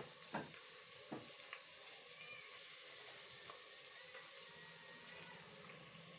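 Onion, garlic, ginger and tomato frying faintly in oil in a steel pot: a quiet, steady sizzle, with a few soft clicks in the first second and a half, the loudest about half a second in.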